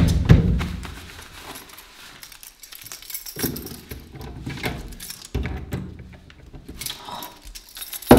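Keys jangling and scraping at a door lock in short, scattered rattles and clicks as someone fumbles to unlock it. It opens on the fading end of a loud, low boom.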